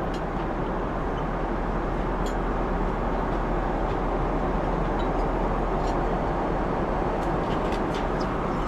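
Steady airliner cabin noise, the even roar of the engines and airflow heard from inside the passenger cabin in flight, with a few faint light clicks scattered through it.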